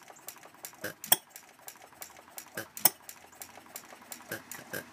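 Quarter-scale IHC Famous 4 HP hopper-cooled model hit-and-miss engine running. It gives a sharp pop about every second and three quarters, with a light, quick clatter of valve-gear and ignitor clicks between them.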